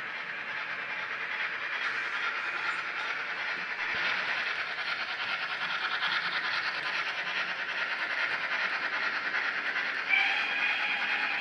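Sound of a model steam locomotive from a DCC sound decoder, played through the locomotive's small speaker: a steady steam and running noise that grows louder about four seconds in. About ten seconds in a whistle starts and keeps blowing.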